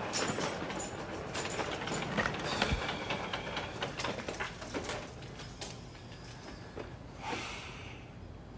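Suitcase wheels rolling and clattering over a hard floor with footsteps, dying away after about five seconds, then a short hiss about seven seconds in.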